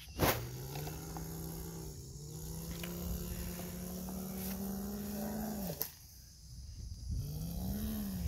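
A boy imitating a truck engine with his voice: one long droning hum that rises slowly in pitch for about five seconds and stops, then after a pause a shorter hum that rises and falls. A sharp knock comes just before the first hum.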